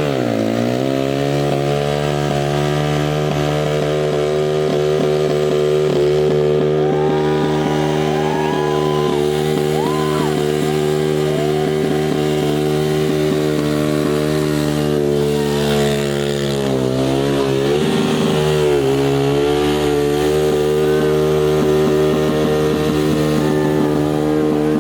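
Superbike engine running at a steady fast idle, its revs falling back and settling at the start, then dipping briefly and picking up again about 17 seconds in.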